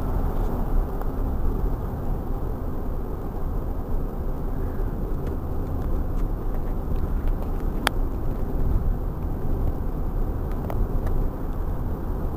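Steady rumble of a car driving at expressway speed, heard from inside the cabin. There is a brief click about eight seconds in.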